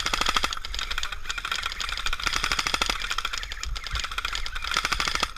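Airsoft guns firing full-auto in several rapid bursts of clicks.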